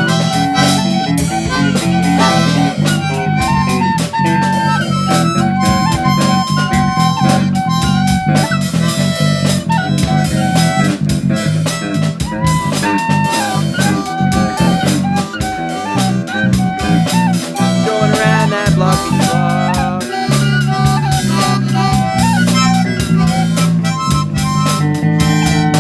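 Instrumental break of a song: a harmonica plays a melody of held notes over guitar, bass and a steady drum beat.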